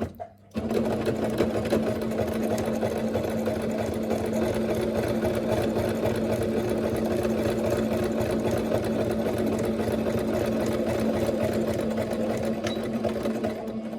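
Singer Starlet 6680 domestic sewing machine stitching a hem. It gives a short burst, pauses briefly, then runs steadily at an even speed and stops near the end.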